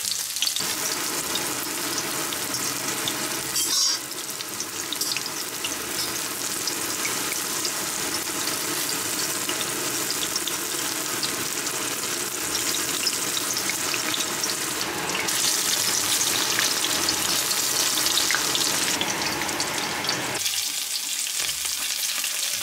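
Oil sizzling and crackling steadily in a stainless steel frying pan as skewered, panko-breaded mozzarella sticks shallow-fry.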